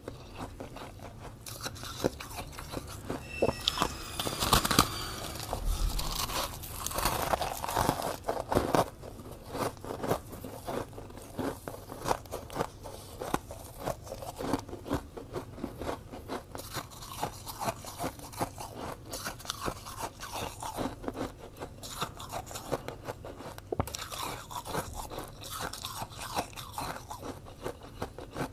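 Fluffy blue freezer-frost ice being bitten and chewed: a dense, crisp crunching that carries on throughout, loudest from about four to nine seconds in.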